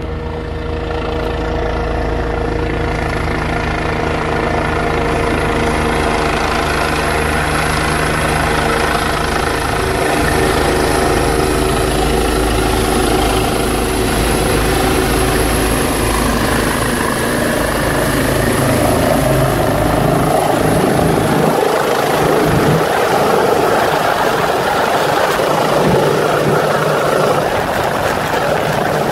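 Rescue helicopter's rotor and turbine running steadily as it comes in to hover overhead, growing a little louder and choppier in the last third.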